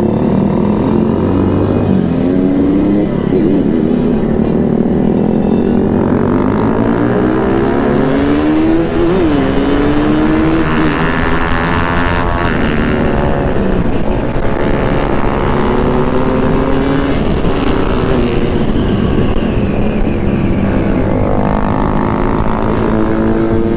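Yamaha RX-King's two-stroke single-cylinder engine running under way, its pitch climbing and dropping several times as the bike is ridden up through the revs.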